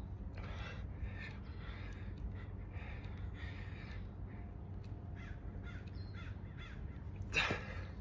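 A run of short animal calls, one or two a second, with a louder one near the end.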